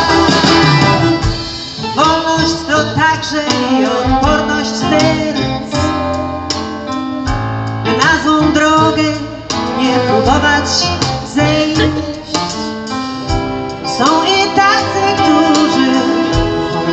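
A woman singing a slow song into a microphone, accompanied by a symphony orchestra with strings and piano, amplified through stage loudspeakers.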